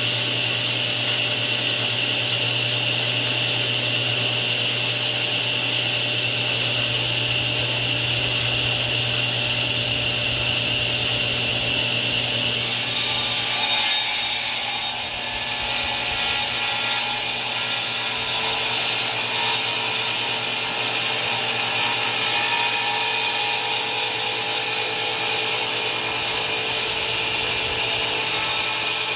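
Table saw running with a steady whine, then about twelve seconds in the blade starts cutting into a live-edge mulberry slab. It keeps cutting, with a harsher, noisier sawing sound, as the wood is fed through slowly.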